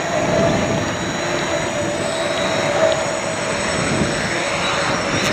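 Quadcopter's electric motors and propellers running with a steady whirring hum as it descends to land, under steady wind rush on the microphone.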